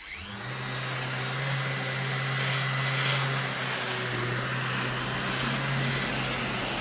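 Electric random orbital sander with a 120-grit disc starting up and then running steadily against an aluminium piece, a steady hum over a broad hiss, in the first flattening pass to take out deep scratches.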